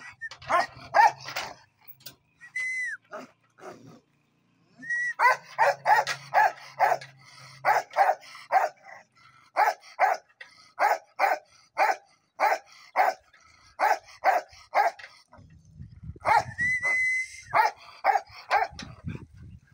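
A chained Bakarwal guard dog barking repeatedly, in runs of about two barks a second, with a pause of a couple of seconds near the start.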